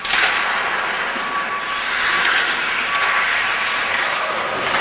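Ice-rink game noise: a steady wash of skates on the ice and play sounds, starting abruptly.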